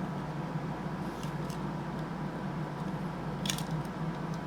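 A few faint, short clicks of a plastic model locomotive cab and its wiring being handled and pulled free, the clearest about three and a half seconds in, over a steady low hum.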